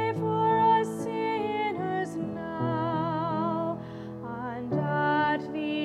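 Soprano singing a hymn with piano accompaniment; long held notes with vibrato, each word's consonants hissing briefly between them, over sustained piano chords.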